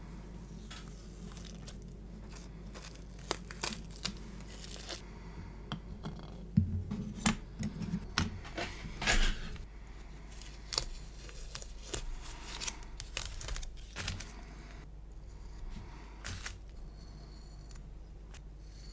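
Masking tape being peeled off painted plastic model-kit parts: short, irregular rips and crinkles with light clicks as the parts are handled, busiest in the middle of the stretch.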